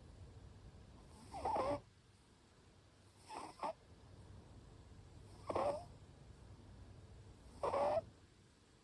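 Short-legged Munchkin cat snoring in its sleep: four snores about two seconds apart, each with a slightly high-pitched whistling note.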